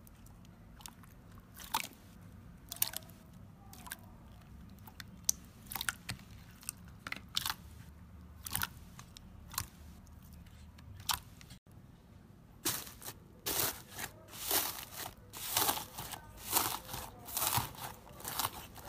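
Clear purple slime with strawberry charms being squeezed by hand, giving scattered wet clicks and pops. About halfway through, it changes to green textured slime being pressed and kneaded, with a dense run of crisp crackles and pops that is the loudest part.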